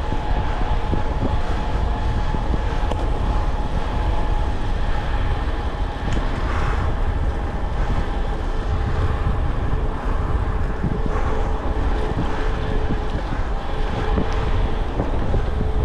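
Wind rushing over the microphone of a bicycle ridden fast, mixed with tyre and drivetrain rolling noise. A faint steady hum runs through it and drops in pitch in the second half.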